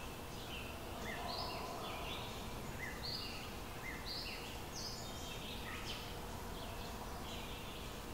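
Small birds chirping, many short high calls overlapping several times a second, over a steady background hiss and a faint steady hum.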